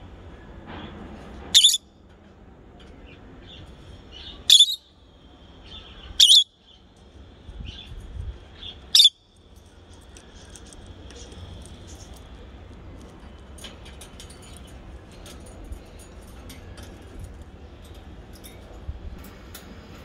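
Lutino peach-faced lovebirds giving four short, loud, high-pitched calls a second or two apart in the first half, then only faint chirps and ticks.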